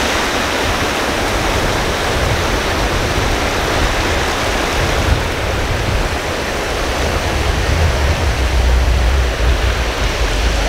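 Ocean surf washing steadily onto a beach, with a low rumble underneath that rises and falls.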